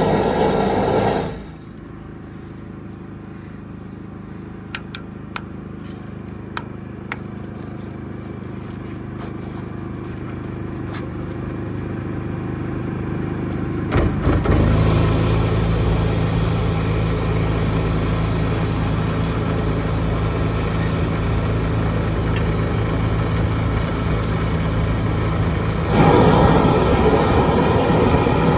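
Engine-driven high-pressure drain-cleaning washer running steadily with a low hum. Its noise drops sharply about a second in, swells slowly with a few clicks, then jumps up about halfway through and louder again near the end.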